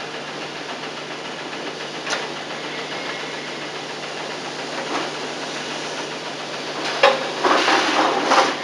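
Steady tape hiss with a low hum from a digitized VHS soundtrack, broken by a couple of faint clicks and, near the end, a louder patch of scraping, rustling noise.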